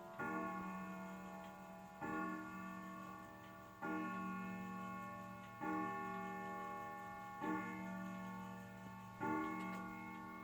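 Howard Miller 612-600 wall clock striking six o'clock on its chime rods: six evenly spaced strokes about 1.8 seconds apart, each ringing on into the next.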